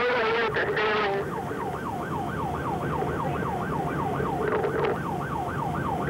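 Police car siren in yelp mode, its pitch sweeping rapidly up and down about three to four times a second. This is the pursuing patrol car's own siren during a high-speed chase. In the first second a rougher, denser sound overlaps it.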